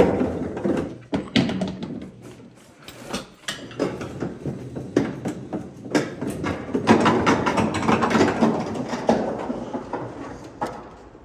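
Door and handling noise: a door being opened and shut and a box of things being carried, heard as a string of clicks and knocks with a denser rattle about two-thirds of the way through.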